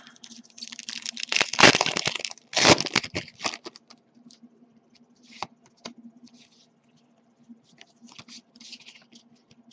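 A Pokémon XY booster pack's foil wrapper being torn open and crinkled, in two loud bursts of tearing and crackling in the first few seconds. Faint rustles and clicks follow.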